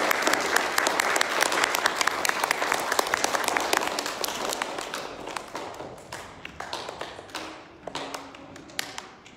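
Audience applauding. The clapping is dense at first, then thins out and fades over the second half, with a few last scattered claps near the end.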